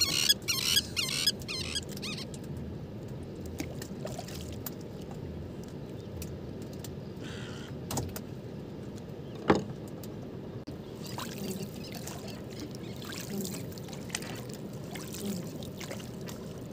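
Steady low rumble of open water around a wooden boat, with a fast, squeaky rattle in the first two seconds and a few sharp knocks, the loudest about nine and a half seconds in.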